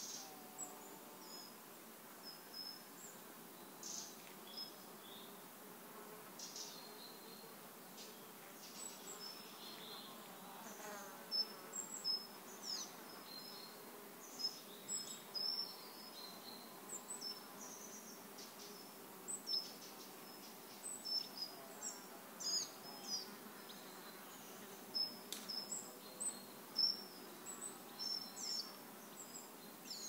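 Forest ambience: many short, high bird chirps and calls scattered throughout, over a faint steady insect-like buzz.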